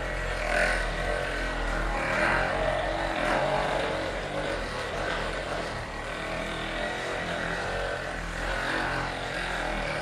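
Percussion massage gun running steadily while pressed against the sole of a socked foot.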